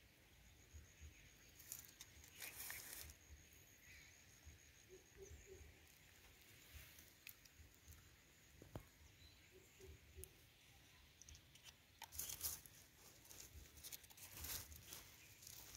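Faint scratchy rustling and light pattering of fertilizer granules sprinkled onto dry soil, and of hands scraping the soil around the plant, with a few louder scratchy bursts a couple of seconds in and again near the end.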